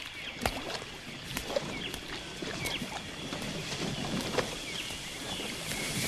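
Film sound-effect ambience: a soft, steady noisy bed with scattered sharp clicks and short, high chirping calls that glide in pitch.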